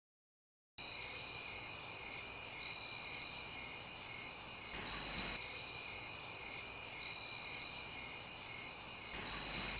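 Crickets chirring steadily in a high, even trill, starting just under a second in after a moment of dead silence.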